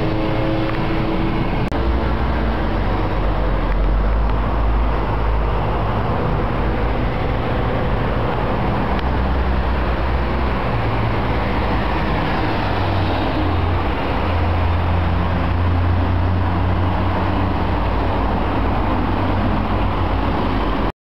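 A motor vehicle in motion: steady engine and road noise, with a low hum that shifts in pitch now and then. The sound cuts off suddenly near the end.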